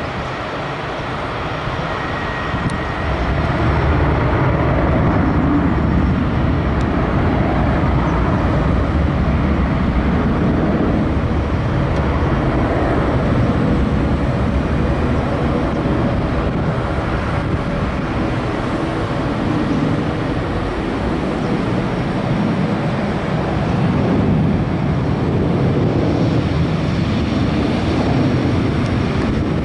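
Airbus A321-200's twin jet engines at take-off power as the airliner rolls down the runway, lifts off and climbs away. The sound is loud and steady, and grows louder about three to four seconds in.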